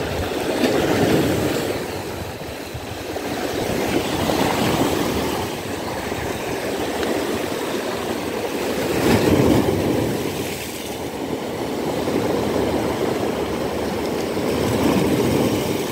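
Rough sea: waves surging and breaking on the shore, a loud rushing noise that swells and falls every few seconds.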